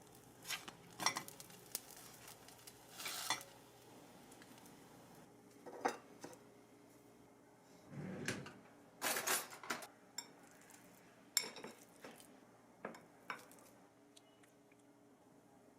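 Kitchenware being handled: dishes, pots and utensils clinking and knocking in scattered, irregular strokes, with a duller scrape or clunk about eight seconds in.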